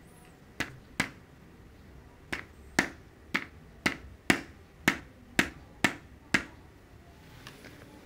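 About eleven sharp clicks, roughly two a second with a short pause after the first two, from switching a colour-changing moon lamp through its colours.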